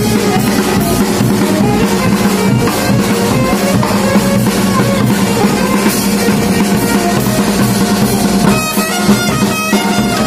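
Music: a drum beat under a steady droning note and a melody, which comes through as bagpipes near the end.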